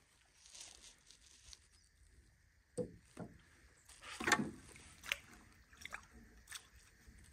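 Small waves slapping and sloshing against the hull of a small boat: a handful of separate slaps, the loudest about four seconds in.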